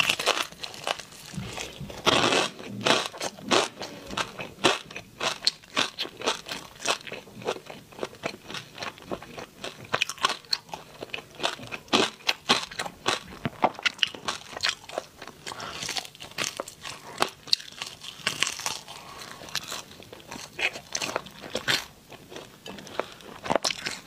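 Person biting into and chewing crispy-crusted pork belly: a dense run of sharp crunches, with heavier clusters about two seconds in and again in the second half.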